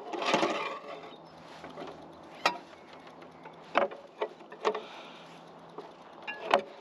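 Steel rebar being bent into stirrups on a manual bending tool: a short metallic rattle near the start, then scattered sharp clicks and knocks of metal on metal.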